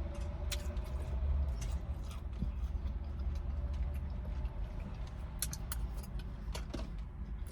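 Steady low hum inside a car cabin, with scattered small clicks and smacks of someone eating.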